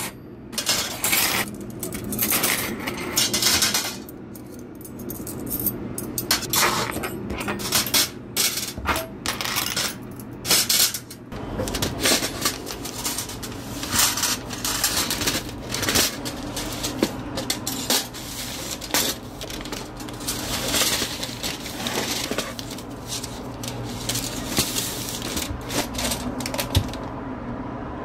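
Stainless steel dental instruments clinking against one another and against metal trays as they are picked up and sorted, a steady run of sharp metallic clinks.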